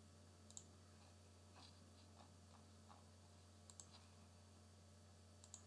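Near silence with a low steady hum, broken by a few faint computer mouse clicks, mostly quick double clicks: about half a second in, around four seconds, and near the end.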